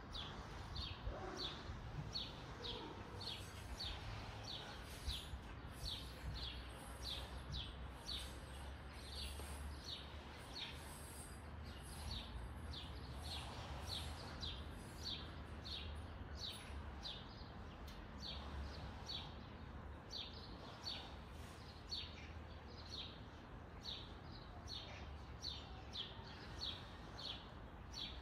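A bird repeating one short, falling chirp about twice a second, over a steady low rumble.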